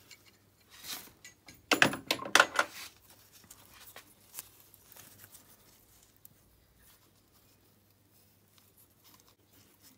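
Light metallic clicks and clatter of a feeler gauge and hand tools against the rocker arm and adjusting screw while setting valve clearance on a cold 250 cc ATV engine. A dense run of clicks comes about two seconds in, followed by faint scattered ticks.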